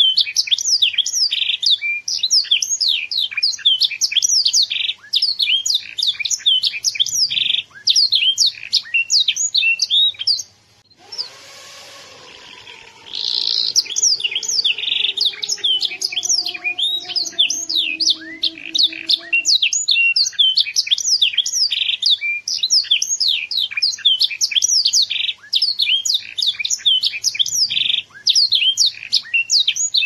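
Young domestic canary singing in a cage: a continuous, fast run of high chirps and rolling trills, breaking off briefly about eleven seconds in and then going on.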